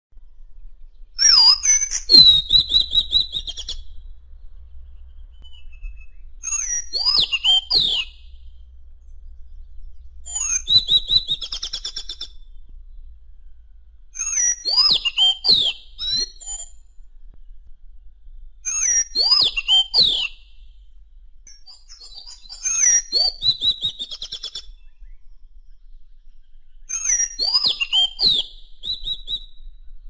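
Madagascar magpie-robin singing: seven short phrases of clear whistled glides and quick trills, one about every four seconds with pauses between.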